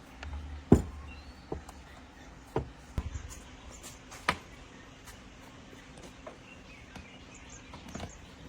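Tools and small parts being handled during a hand repair job: a handful of separate sharp knocks and clicks at uneven intervals, the loudest about a second in, over a faint background hiss.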